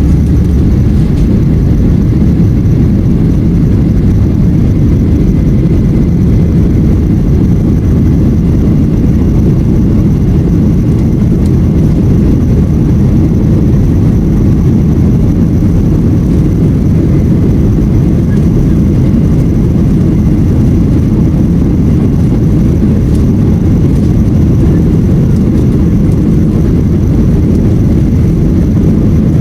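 Jet airliner cabin noise: a steady, loud low rumble of the engines and airflow, heard from inside the cabin.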